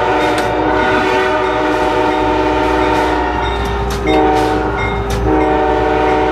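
Locomotive air horn sounding a steady multi-note chord, heard from inside the cab: a long blast, a short blast about four seconds in, then another long blast. The low rumble of the moving locomotive runs underneath.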